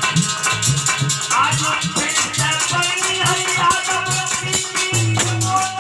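Alha folk music: a drum beat under a steady, fast shaking/jingling percussion, with a sliding melody line coming in about a second in.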